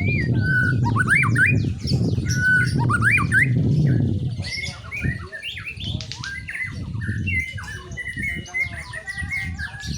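White-rumped shama singing: loud whistled phrases that rise and fall, mixed with harsh squawking notes, ending in a fast run of high, repeated chips. A low rumble sits under the first few seconds.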